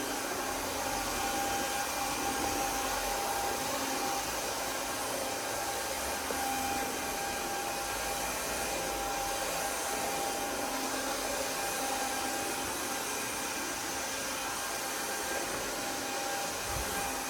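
Roidmi Neo cordless wet-dry vacuum running steadily in its wet mopping mode across a laminate floor, with airflow noise and a faint steady whine.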